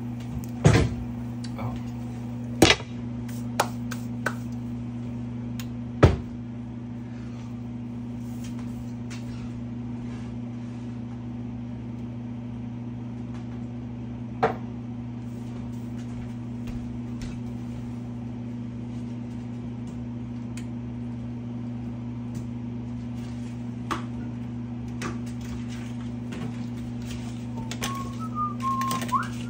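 Steady low electrical hum from a kitchen appliance at the stove. Several sharp clacks in the first few seconds, as a glass lid is set on a frying pan, and a single click about 14 seconds in. Light knocks and clinks near the end.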